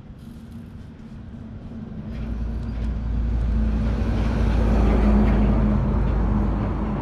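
An engine running, growing louder over a few seconds, then easing slightly, with a steady low hum.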